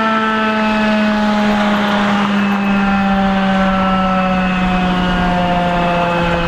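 Federal Signal 2001-130 electromechanical rotating warning siren winding down: a loud low howl, sliding slowly and steadily lower in pitch.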